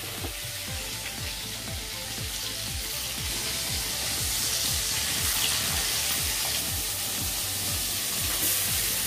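Pieces of dried fish frying in hot mustard oil in a clay kadai: a steady sizzle that grows gradually louder as more pieces go in.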